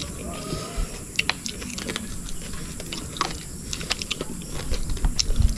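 Eating by hand: chewing, with scattered irregular clicks as fingers work the food on the plates.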